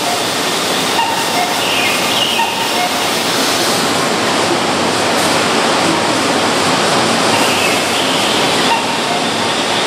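Steady hiss and hum of a stationary Keihan 7200-series electric train standing at the platform, its on-board equipment running.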